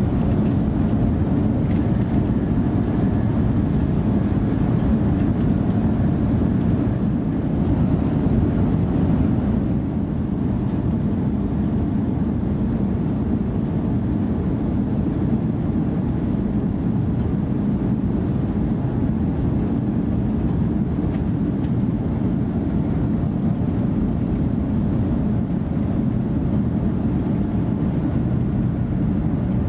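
Steady low rumble of an ICE 3 high-speed electric multiple unit on the move, heard from inside the passenger section behind the driver's cab; it drops slightly about ten seconds in.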